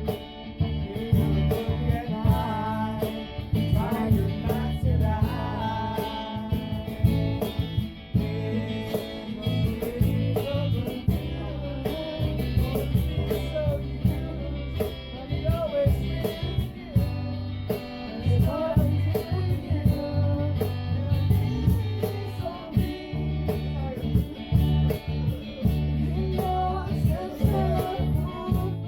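Strummed acoustic guitar music with a steady rhythm and a voice singing along.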